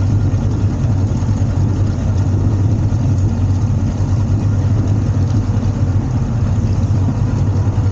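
Small boat's outboard motor running steadily at low speed, a constant low drone.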